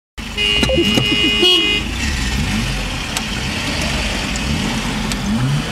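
A vehicle horn sounds steadily for about a second and a half near the start. Under it, the truck's engine runs with road noise heard from inside the cab.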